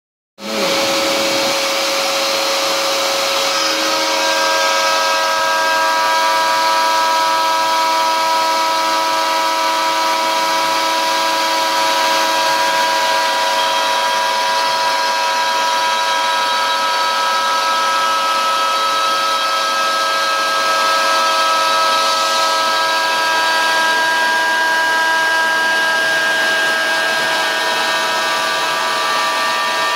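DeWalt router spinning on a Shapeoko 3 CNC machine as its bit cuts a circular groove in MDF: a steady, high machine whine with several held tones over a constant rush. A vacuum is drawing dust through the router's brush dust shoe.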